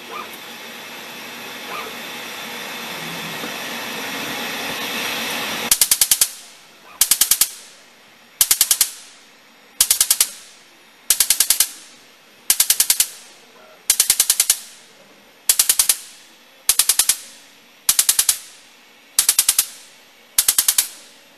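A hiss that grows steadily louder for about six seconds, then laser shock cleaning pulses: short volleys of rapid, sharp snaps from the pulsed laser's shock waves in the air, each volley about half a second long, repeating about every 1.3 seconds.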